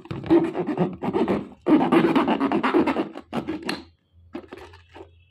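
Knife blade scraping and cutting around the rim of a plastic whey-protein tub to open its sealed mouth: a run of quick, rough, irregular scraping strokes. After about four seconds it thins out to a few fainter scrapes.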